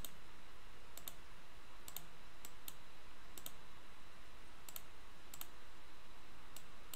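Computer mouse buttons clicking several times, about once a second. Each click is a quick double tick as the button is pressed and released, over a faint steady hiss.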